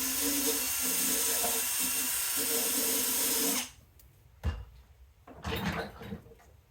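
Cordless drill spinning a wire wheel at high speed, brushing a twisted copper wire joint clean, stops abruptly a little over three and a half seconds in. A sharp knock and a few short handling noises follow.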